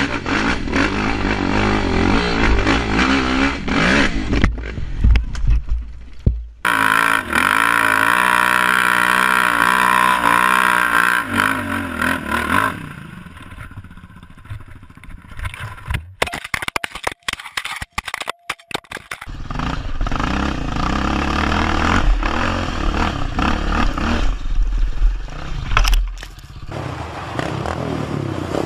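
Quad bike (ATV) engines revving and running, in several short clips cut one after another, so the sound changes abruptly a few times.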